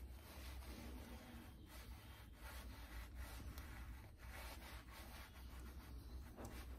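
Faint rubbing of fingertips spreading cream over the skin of the face, over a low steady hum.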